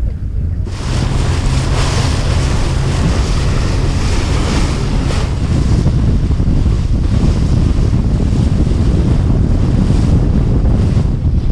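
Wind buffeting the microphone and sea water splashing and rushing along the hull of a small fishing boat under way, over the low drone of its engine. The rush comes in suddenly about a second in and stays steady.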